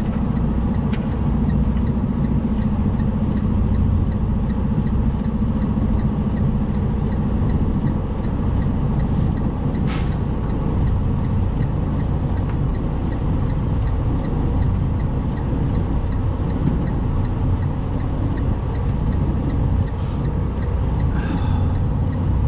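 Semi truck's diesel engine running at low revs during a slow reversing manoeuvre, a steady low drone. Its tone shifts about eight seconds in, and a brief sharp sound comes about ten seconds in.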